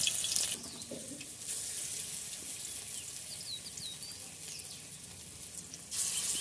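Banana-blossom pakoras deep-frying in hot oil in a wok, a steady sizzle. It is loudest in the first half-second, eases off, then swells again near the end as more batter goes into the oil.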